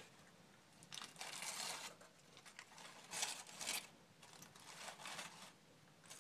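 Aluminum foil crinkling in a few irregular bursts as a foil-wrapped food packet is handled and pulled open, the loudest about a second in and just after three seconds.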